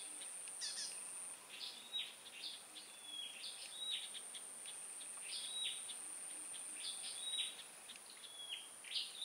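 Small bird chirping over and over, short high calls about twice a second at uneven spacing, over a steady high-pitched insect whine.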